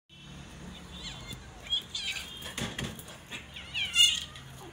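A white kitten mewing shrilly several times, the last cry the loudest, as a puppy pins it down and mouths it. A brief scuffling noise comes about halfway through.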